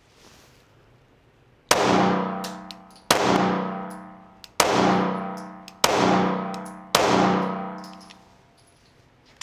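Mossberg MC2sc 9mm micro-compact pistol fired five times, starting about two seconds in, with the shots a second to a second and a half apart. Each shot leaves a ringing echo that dies away before the next.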